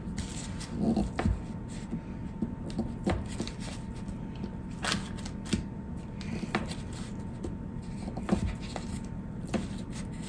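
Paring knife cutting a block of butter into cubes on its paper wrapper: irregular soft taps and scrapes as the blade goes through and meets the wrapper, roughly one every second or two.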